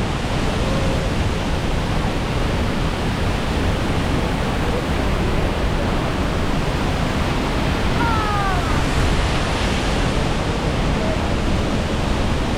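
Waterfall close by: a loud, steady rush of falling water. A brief falling whistle-like sound comes about eight seconds in.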